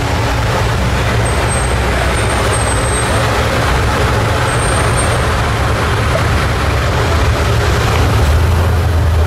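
Slow, busy city street traffic: several car engines running in a steady low rumble, mixed with road noise.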